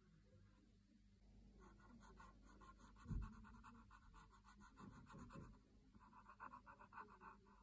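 Faint scratching of a Posca paint marker tip rubbed back and forth on a phone case in quick, short, even strokes, in two runs. A single soft low thump comes about three seconds in.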